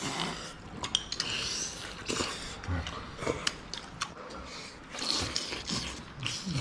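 Mouth sounds of people eating braised beef leg: biting and chewing meat off the bone, with scattered clicks of chopsticks against porcelain bowls.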